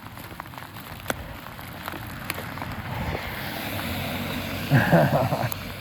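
A car driving past on a wet road, its tyre hiss swelling as it approaches and passes, then fading.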